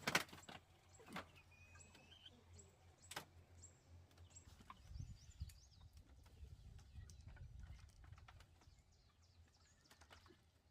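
Faint outdoor farm ambience: a few sharp knocks, the loudest right at the start and others about one and three seconds in, with faint bird chirps and a low rumble in the middle.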